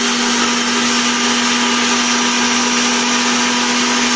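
Disnie Bullet 1000-watt blender's motor running steadily at full speed, grinding whole dry cumin seeds in its dry-spice jar: an even whirr with a strong steady hum.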